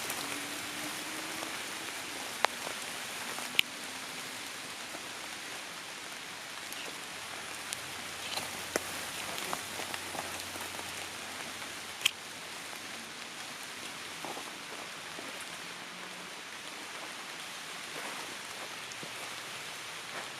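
Light rain pattering on tree leaves, a steady hiss with sharp single drop ticks now and then, the loudest about twelve seconds in.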